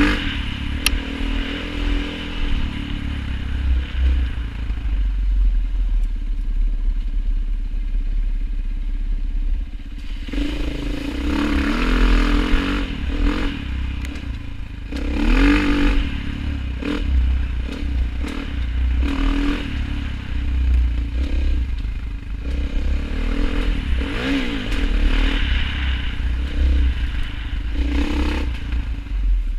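A motor vehicle's engine running steadily under way, its pitch rising and falling as it revs, with a constant low rumble and intermittent knocks and rattles.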